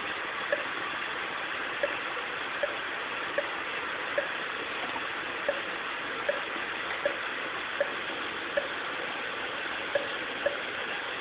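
Heart monitor beeping once per heartbeat over a steady hiss: short beeps come in runs of three or four, each run followed by a longer gap. The gaps are the dropped beats of second-degree AV block type 1 (Wenckebach).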